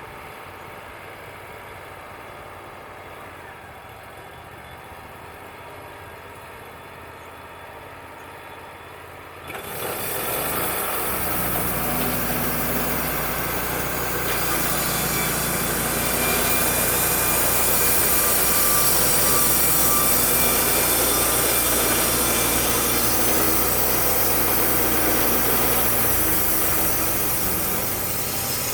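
Wood-Mizer LT35 band sawmill running steadily, then about ten seconds in it suddenly gets much louder as the band blade cuts through a poplar log. The sawing noise holds steady through the cut and eases a little near the end.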